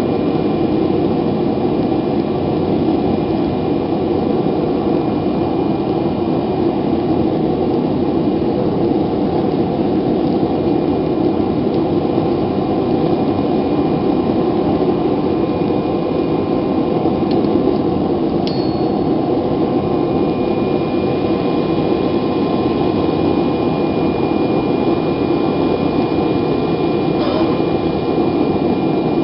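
Propane gas forge burner running steadily, a constant rush of gas and flame as the forge warms up.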